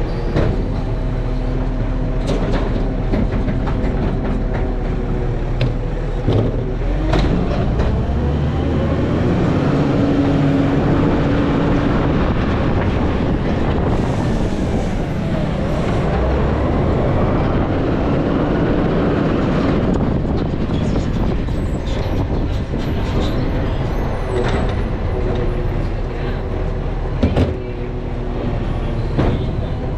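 Garbage truck's diesel engine running steadily, then revving up and back down over about ten seconds midway through, with a few sharp clanks.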